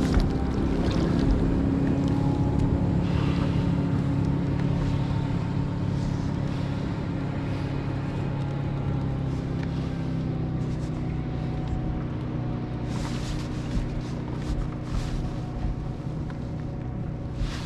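Motorboat engine running steadily at low revs, a constant hum whose pitch drifts slightly and which slowly grows fainter. A few short knocks or splashes come near the end.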